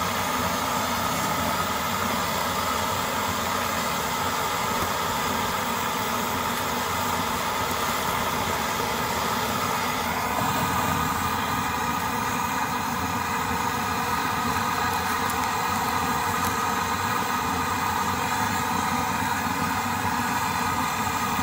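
Antique brass-tank pressure stove running on petrol, its vaporising burner at full flame making a steady rushing noise. About halfway through, the tone shifts slightly as a frying pan is set over the flame.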